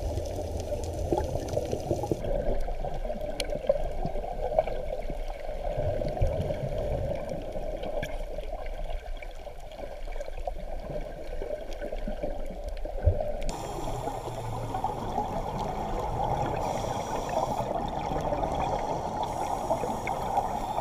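Muffled underwater water noise recorded by a GoPro inside its waterproof housing during a reef dive: a steady dull rush with a few faint clicks, growing brighter after a cut about 13 seconds in.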